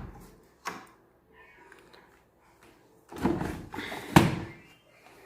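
Knocks and clatter from handling a Brandt washing machine: a short knock about a second in, then a burst of clattering that ends in a sharp bang about four seconds in.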